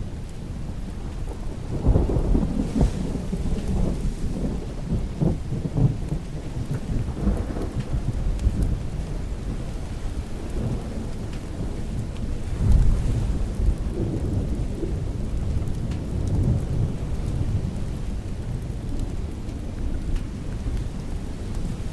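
Thunder rumbling over steady rain, with louder rolls swelling about two seconds in and again just past halfway.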